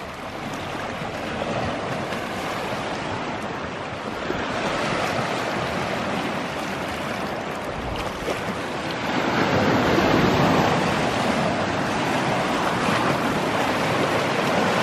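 Small lake waves washing and splashing over flat rock ledges at the shoreline, a steady wash that swells louder about four seconds in and again around nine to ten seconds.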